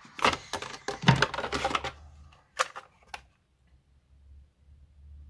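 Hard plastic cosmetics packaging clicking and clattering as it is handled and opened: a quick run of clicks over the first two seconds, then two single clicks.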